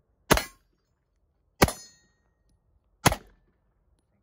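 Three semi-automatic pistol shots, spaced about one and a quarter to one and a half seconds apart, each a sharp crack with a short ringing tail.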